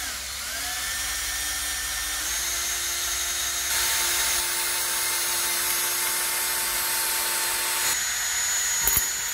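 Cordless drill spinning a bit down the centre of a broken stud: a steady motor whine over a cutting hiss. It spins up at the start, rises in speed twice in the first few seconds, and stops right at the end.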